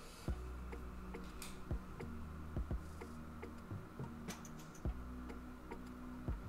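Soft, low-pitched background music with held notes that change every second or so, broken by a few short sharp light clicks at irregular moments.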